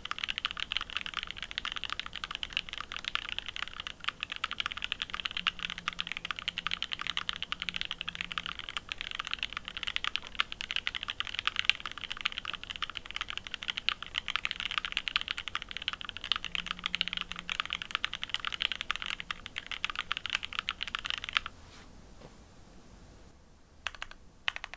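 Fast, continuous typing on a Fuji 65 mechanical keyboard with lubed Mauve linear switches, an aluminium full plate and GMK doubleshot keycaps. The typing stops about three seconds before the end, followed by a few separate keystrokes.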